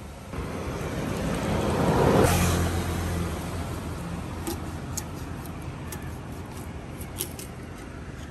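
A road vehicle passes close by, swelling to its loudest about two seconds in, with an engine hum that fades out about four seconds in. A few short, sharp clicks follow.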